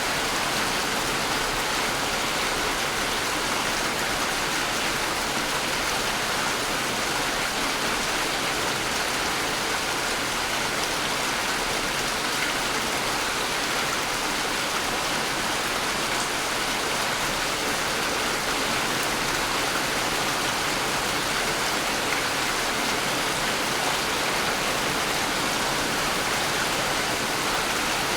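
Steady rain, an even hiss of falling water with no change in level.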